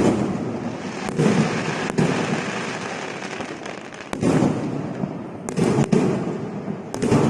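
Aerial fireworks bursting overhead: about seven sharp bangs at uneven intervals, a pair coming close together near the end, each followed by a long crackling, rumbling tail.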